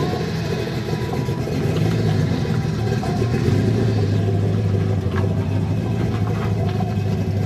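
Car engine running at idle close by: a steady low hum that grows stronger about two seconds in.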